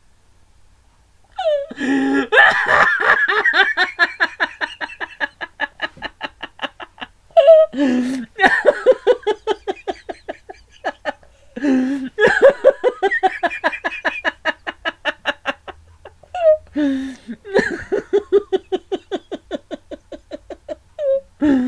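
A man laughing hard in four long bouts, each a loud outburst followed by a rapid train of 'ha' pulses that trails off, with another bout starting near the end.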